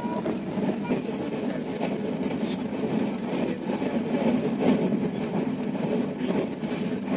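Passenger train running at speed, heard from on board: a steady rumble of wheels on the rails, with irregular clicks and knocks.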